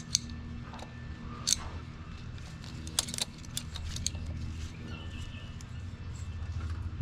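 Scattered light clicks and taps of hands and a tool working at an engine's hardened, brittle plastic vacuum lines, over a steady low hum.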